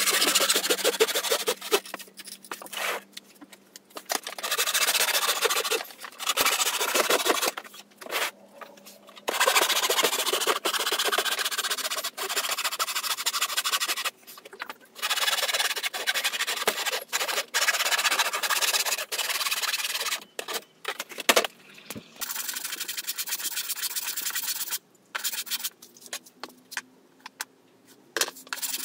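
Handsaw cutting through thin plywood sheet in fast back-and-forth strokes, in runs of a few seconds broken by short pauses.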